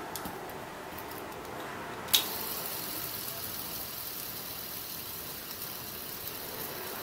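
A sharp click about two seconds in as a fidget spinner cube is flicked, then the steady, quiet whirring hiss of it spinning on its bearing.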